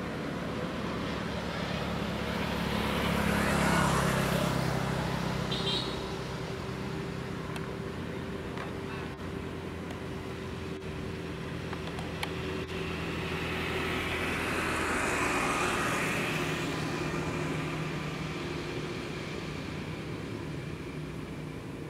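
Road traffic passing close by: engine and tyre noise swells and fades twice, once about four seconds in and again around fifteen seconds in, over a steady traffic hum.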